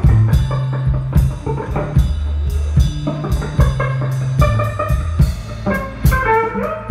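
Live blues band playing an instrumental passage: electric guitars, electric bass and a drum kit keeping a steady beat, with a guitar phrase sliding up in pitch near the end.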